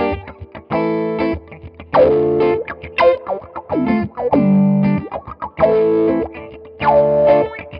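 Electric guitar played through an Electro-Harmonix Q-Tron Plus envelope filter in band-pass mode, with the dry signal blended in by the mix control. Picked chords and notes each give a wah-like sweep on the attack, over a fatter unfiltered tone underneath.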